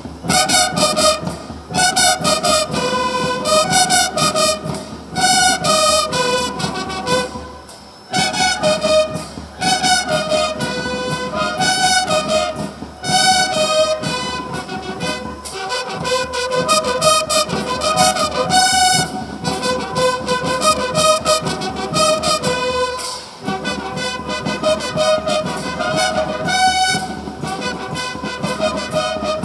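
Large marching band playing a melody on wind instruments over side drums and bass drums keeping a steady beat, with short pauses between phrases a few times.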